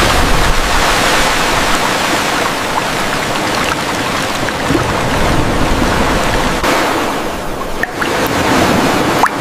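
Seawater pouring and splashing off a rack of oysters as it is lifted out of the sea, a steady rush of water. The rush eases about two-thirds through, and a few drips fall near the end.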